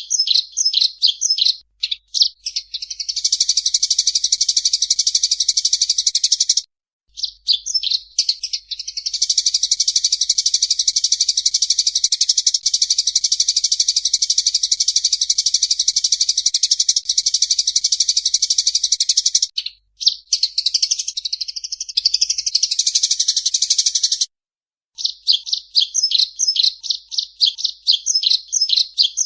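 Recorded songbird song used as a masteran tutor track for training caged birds: bursts of quick repeated high notes alternate with long unbroken buzzy trills, one lasting about ten seconds. Around two-thirds of the way through come gliding, varied notes, and then rapid chattering notes again near the end.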